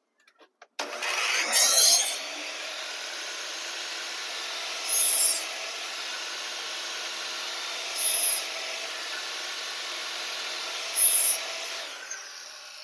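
Power saw running, with four louder cuts about three seconds apart as it takes the corners off a wooden block, then winding down near the end.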